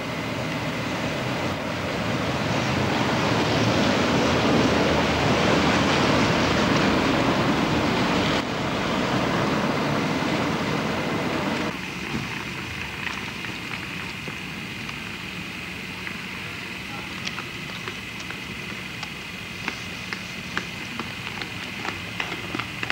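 Steady rushing noise of a vehicle in motion, heard from on board, with wind on the microphone. The sound changes abruptly about eight and about twelve seconds in, then goes on quieter with scattered clicks.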